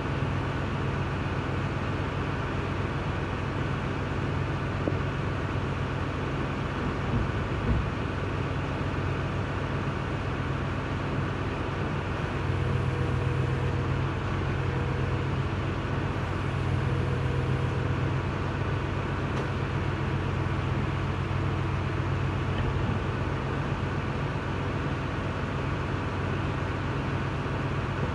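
A steady low machine hum, with a couple of light knocks about seven to eight seconds in.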